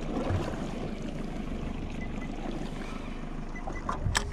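Wind and sea noise around a small open boat on the water, with a few sharp clicks about four seconds in.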